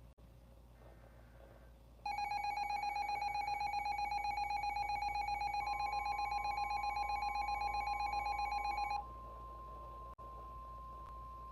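Emergency Alert System attention signal: a loud two-tone alarm with a fast warble, starting about two seconds in and cutting off about nine seconds in. Partway through, a steady, slightly higher single-tone NOAA Weather Radio alert tone starts under it and carries on after the two-tone alarm stops.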